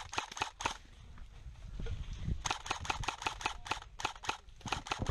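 Airsoft rifle firing in rapid strings of sharp clicking shots, about seven a second. The firing breaks off less than a second in and starts again about halfway through.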